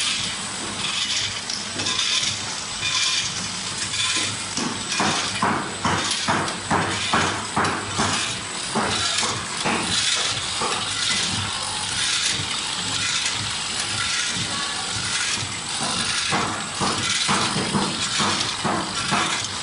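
Vertical sachet packing machine with a volumetric cup doser running, a steady hum under rapid, repeated mechanical clicking and clattering. Dry snack sticks rattle as they pour into its steel hopper.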